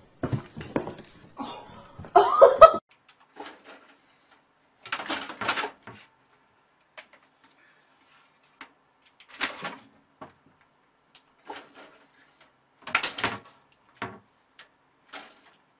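Scattered bumps, knocks and short scratchy rustles from cats at play, with a louder brief burst about two seconds in. Most of the scratching comes from a cat clawing its way up the side of a computer tower.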